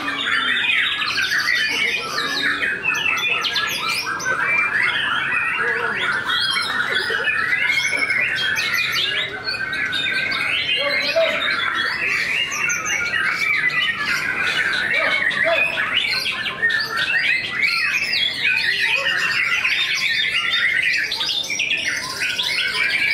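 White-rumped shamas (murai batu) singing together: a loud, dense, unbroken stream of rapid whistles, trills and harsh chattering notes.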